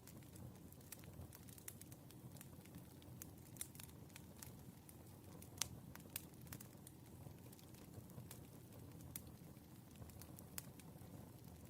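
Faint crackling of a wood fire: irregular small pops and snaps over a low steady rumble of the burning logs, with one sharper pop about halfway through.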